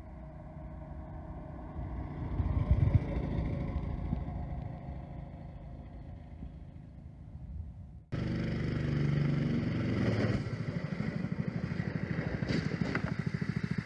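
Predator 212 single-cylinder engine running. It is quieter at first, then after an abrupt cut about eight seconds in it is loud and close at idle with a steady, even pulse.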